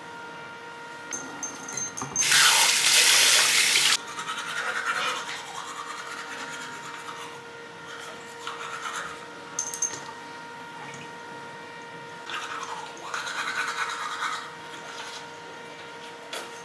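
A toothbrush scrubbing teeth in short stretches, over a steady hum. About two seconds in comes a louder rush of noise lasting under two seconds.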